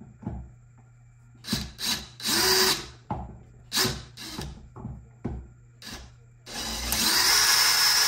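Power drill in reverse, backing a screw out of a door keypad lock: a few short bursts of the motor with small knocks between them, then a steady run of about two seconds near the end as the screw comes out.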